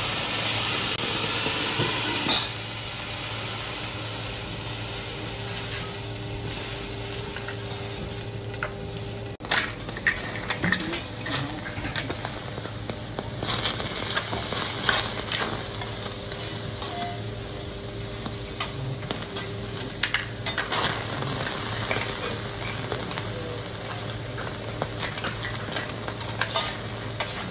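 Food sizzling on a hot teppanyaki griddle, with a louder burst of hissing for the first couple of seconds. From about a third of the way in, metal spatulas clink and scrape against the steel plate again and again over the steady sizzle.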